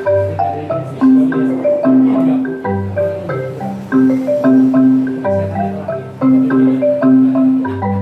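Yamaha CK61 stage keyboard played with both hands, on a bright mallet-like voice: a run of short notes over a low bass note that changes about every two and a half seconds.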